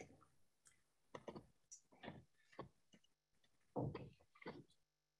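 Near silence broken by a handful of faint, irregular clicks and taps.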